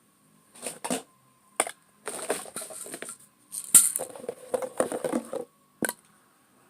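Slime-ingredient bottles and containers being picked up and set down, a run of knocks and clinks in several bursts with short gaps between.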